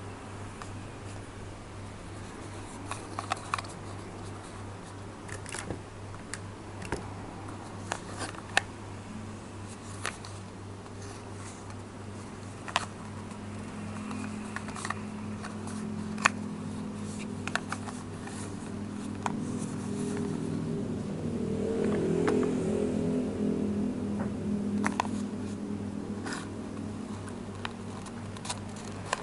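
Small cardboard Tomica toy-car box handled in the fingers: scattered light clicks and taps of fingertips and nails on the card as it is turned over and its end flap worked. Under it runs a steady low hum, and a low drone swells in the second half and fades near the end.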